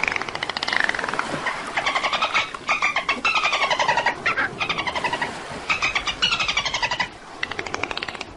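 Dolphins clicking and whistling: rapid buzzing click trains broken by short pauses, with whistles that slide up and down in pitch.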